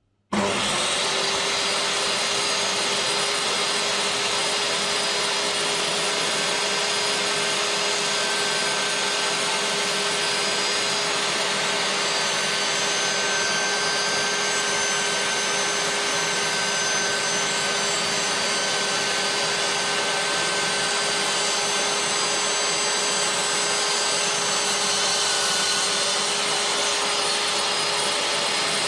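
DeWalt DW745 10-inch job-site table saw with its 15-amp motor running steadily at full speed. It cuts in suddenly just after the start, then holds an even, unchanging whine.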